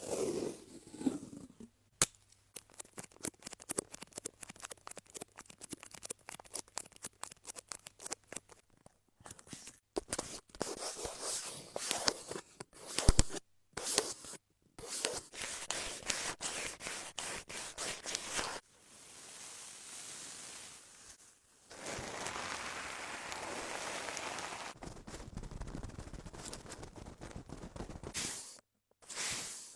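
ASMR trigger sounds made close to the microphone: dense rapid crisp clicking and crackling, then separate scratchy bursts, and a longer steady scraping hiss near the end.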